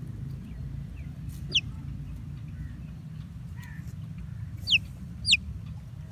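Baby chicks peeping: three short, high-pitched peeps, each sliding downward, one about a second and a half in and two close together near the end, over a steady low rumble.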